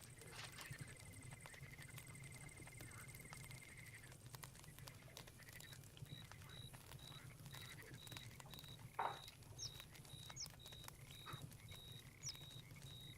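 Faint night-forest ambience: a campfire crackling with small scattered pops, under a steady high trill of crickets and other insects. A second trill runs through the first four seconds, then a high chirp repeats about twice a second from about six seconds in, with one louder short call or pop about nine seconds in.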